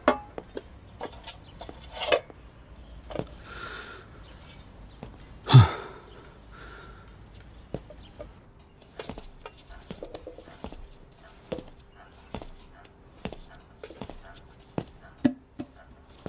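Scattered clinks and knocks of cups, a spoon and a steel tray as coffee is made and served, with one heavier thud about five and a half seconds in.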